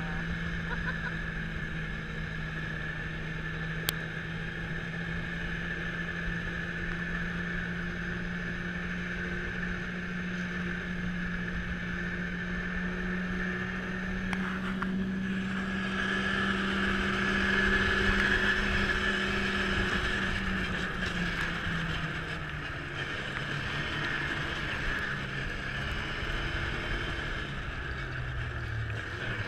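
Snowmobile engine running steadily at speed, its pitch holding and then falling gradually over the last several seconds as it slows. A steady rushing noise runs under it, loudest a little past halfway.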